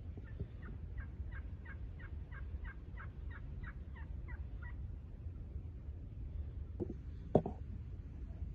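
Wild turkeys calling across a field: a run of about fourteen short calls, some three a second, that stops about five seconds in. Near the end comes a sharp knock, the loudest sound.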